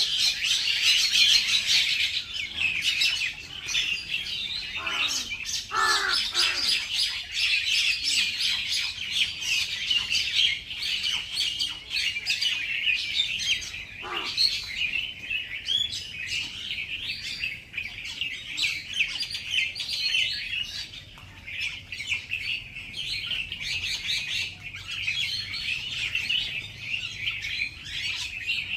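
A flock of small birds chirping continuously, many overlapping high calls. A few longer falling calls cut through about five to six seconds in and again around fourteen seconds.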